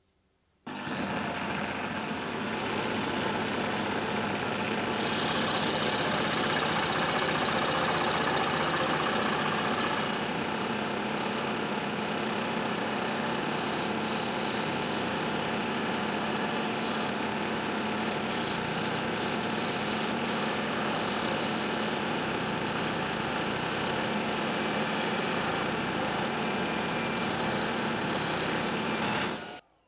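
Homemade scroll saw running steadily, its blade sawing up and down through thin plywood along a curved line. The saw starts suddenly about half a second in and stops suddenly just before the end.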